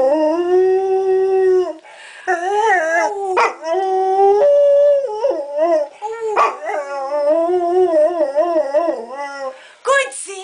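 Dog howling, a long held note followed by a series of wavering, rising and falling notes, with a short break about two seconds in.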